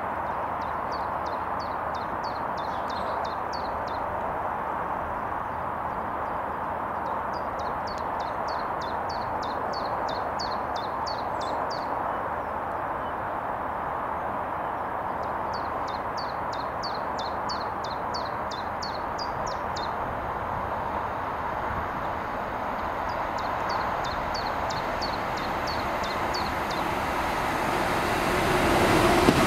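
A Class 66 diesel locomotive approaches hauling a freight train, its engine a steady running sound that grows louder near the end as the train draws close. A songbird sings four short phrases of rapid high chirps over it.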